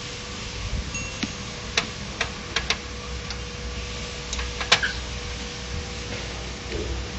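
A steel screwdriver clinking and tapping against the sheet-metal chassis and screws of an opened HP LaserJet 1010 laser printer: a string of sharp metallic clicks, some ringing briefly, the loudest about four and a half seconds in, over a faint steady hum.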